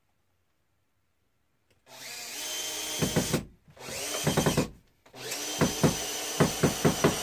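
Cordless drill driving screws through a metal bracket into wood. After about two seconds of quiet the drill starts, then runs three times in short bursts, each burst ending in a rapid series of knocks.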